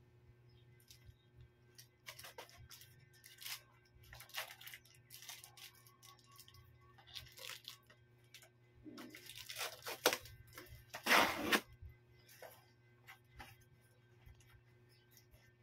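Cardboard shipping box being handled and opened: irregular rustles and scrapes of cardboard and packing, with louder bursts about ten and eleven seconds in, over a faint steady hum.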